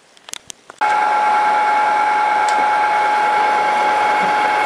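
A few light clicks, then about a second in a milling machine starts up abruptly: an end mill cutting a groove into a metal plate, a steady mechanical whine with one constant high tone.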